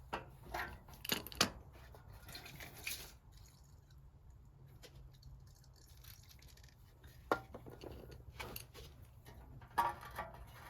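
Scattered clicks and clinks of hand tools and metal parts being handled while bolts are undone on a VW Beetle's rear bumper irons, a few close together at the start and more near the end.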